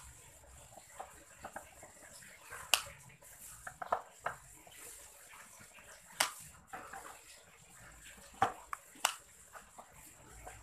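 Screwdriver clicking and knocking against the screws and plastic pickguard of a Cort G260 electric guitar while the pickguard screws are worked loose: irregular sharp clicks, with a few louder knocks.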